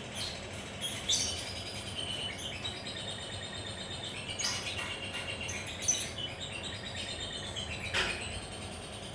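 Lovebirds chattering and chirping, with a few sharp, shrill calls standing out: about a second in, in the middle, and near the end.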